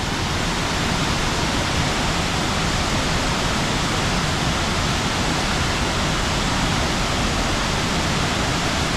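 Krka waterfall's water pouring down, a steady loud rush of falling water that does not change.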